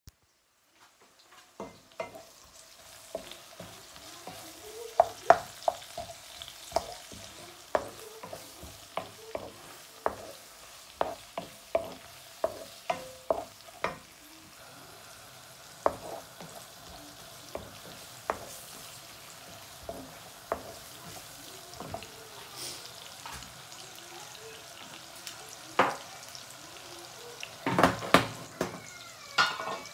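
Shrimp, onion and vegetables sizzling in a nonstick wok while a wooden spatula stirs them, its strokes knocking and scraping against the pan. The knocks come quickly through the first half, then more sparsely, with a louder flurry near the end.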